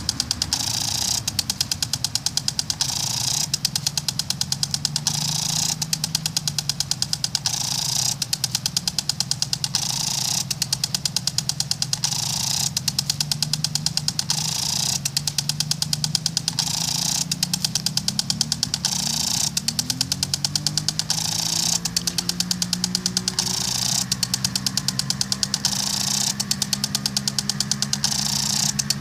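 Melnor lawn sprinkler spraying water, its mechanism clicking rapidly in short bursts about every second and a half, with a hiss of spray between the bursts. A low steady hum runs underneath and rises in pitch about two-thirds of the way through.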